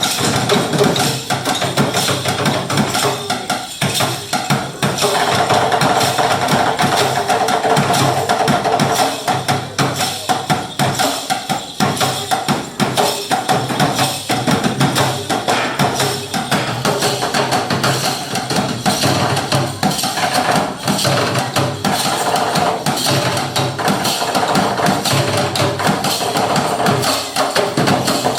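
Live music driven by fast, steady percussion: a dense run of knocks and clicks, with a held tone joining about five seconds in.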